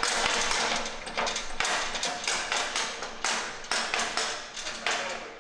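An irregular run of sharp knocks and taps, about two a second, each with a short ring after it, from work on the engine and gearbox going into the engine bay.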